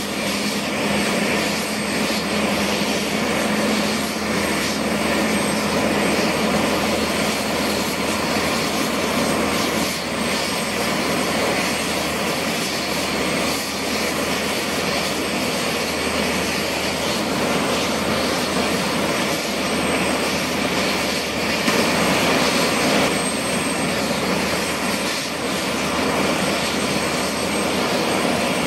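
Bell AH-1Z Viper and UH-1Y Venom helicopters, each with twin turboshaft engines, running on the ground with their rotors turning during start-up. The sound is a steady engine rush and rotor noise with a thin, steady high-pitched turbine whine over it; a low hum fades out a few seconds in.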